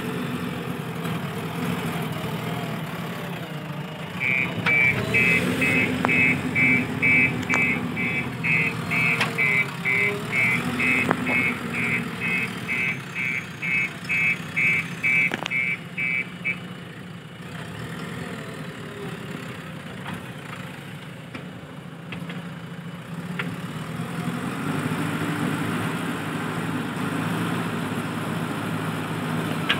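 JCB 3DX backhoe loader's diesel engine running, with its reversing alarm sounding a steady run of high beeps, about two a second, from about four seconds in to about sixteen seconds in. The engine sound dips after the beeping stops and picks up again near the end.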